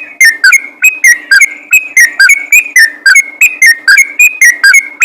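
Yellow-vented bulbul singing: a fast, unbroken run of short whistled notes, about four a second.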